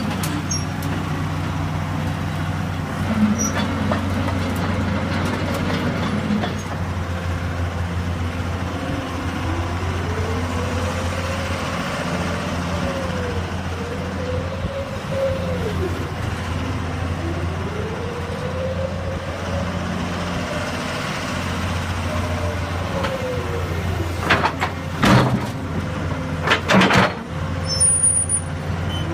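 Komatsu PC200 excavator's diesel engine running steadily, with a whine that rises and falls in pitch twice as the hydraulics work. Several sharp clanks come near the end.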